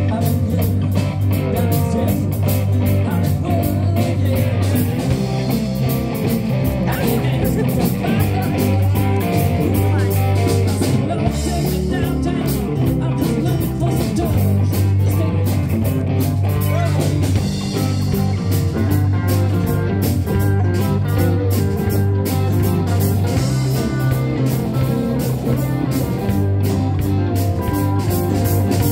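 Live blues-rock band playing: electric guitars and keyboard over a steady bass line, with a man singing into the microphone.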